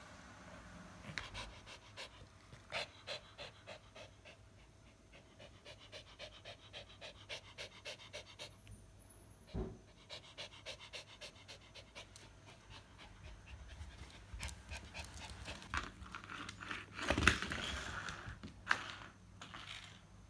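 Pomeranian dog panting in a quick, even rhythm of about three breaths a second, with a short break around the middle. Near the end comes a louder brief clatter, then a sharp click.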